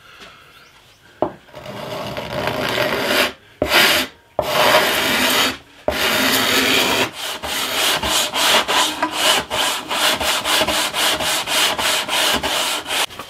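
Card scraper drawn along the wooden side of a bass guitar's neck and fretboard in a few long strokes, then a sanding block rubbed back and forth along it in quick strokes, about four a second, over the second half.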